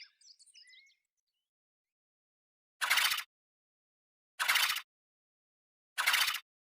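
Daemonosaurus creature sound effect: a flurry of high chirping calls that dies away within the first second, then three short breathy hisses, evenly spaced about a second and a half apart.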